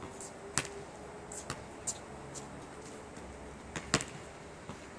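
A basketball bouncing on an outdoor asphalt court: a handful of sharp thuds, the loudest about four seconds in.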